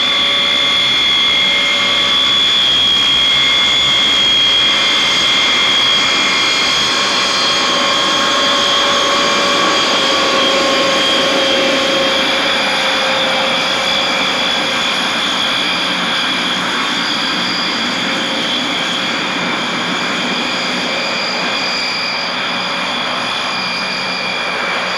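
Vickers Viscount's four Rolls-Royce Dart turboprop engines running at taxi power: a steady high-pitched whine of several tones over a rushing noise. It fades slightly over the last several seconds as the airliner moves away.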